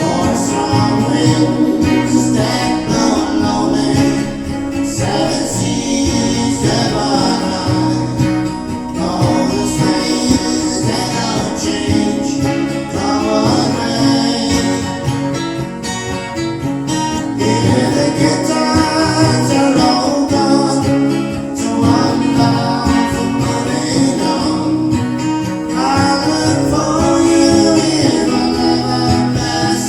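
Acoustic guitar strummed steadily, with a voice singing over it in phrases that come and go.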